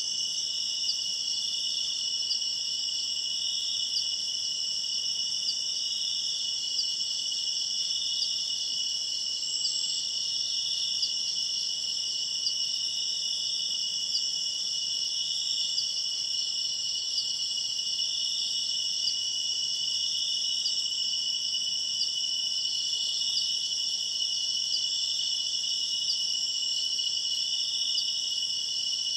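A chorus of night insects, crickets among them, trilling steadily at several high pitches at once.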